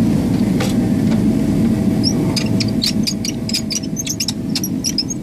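Airliner seat footrest creaking and squeaking in a quick run of short squeaks, about five a second, starting about two seconds in as it is worked back and forth by foot. The squeak comes from dry pivots that need a little oil. A steady cabin air hum runs underneath.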